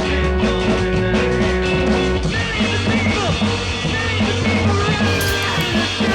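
Background rock music with a steady drum beat; the arrangement changes about two seconds in.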